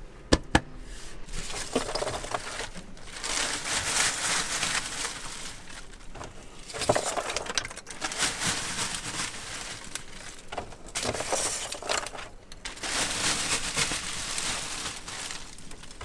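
A plastic bag of foam insulation scraps being handled, crinkling and rustling in irregular bursts, with a couple of sharp clicks near the start.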